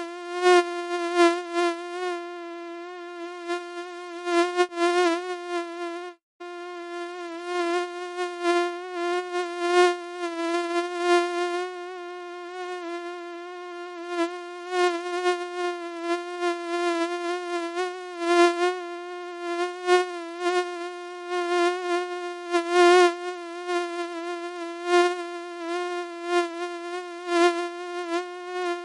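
Mosquito whine: a continuous thin buzz whose pitch wavers slightly while its loudness swells and fades, as if the insect circles close to the ear. It breaks off briefly about six seconds in.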